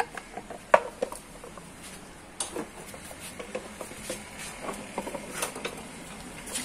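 Scattered clicks and knocks of hand-worked metal parts and tools on a motorcycle's rear wheel hub, irregular, with one sharp knock about three-quarters of a second in.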